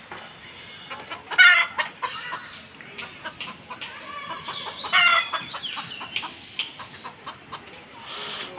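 Chickens clucking, with two loud calls, one about a second and a half in and another about five seconds in.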